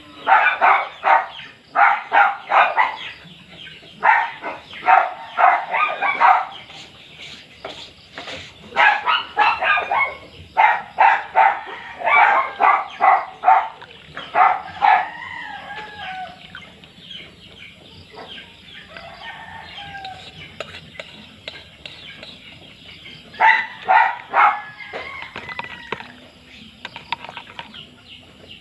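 Chickens clucking in several bursts of rapid calls, with quieter stretches between.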